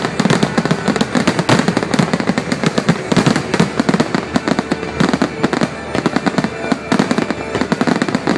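Fireworks going off in a rapid, unbroken run of bangs and crackles, many per second, like a finale barrage.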